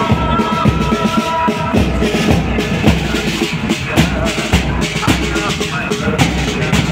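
Marching pipe band playing: bagpipes sounding held notes over drums beating a march rhythm. The pipes drop away about two seconds in, leaving mainly the drums.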